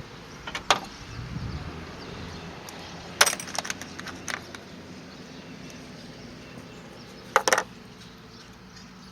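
Metal tools and parts clinking and clacking as they are handled: a sharp click early, a short cluster of clinks a few seconds in, and a double clack near the end, over a steady low hum.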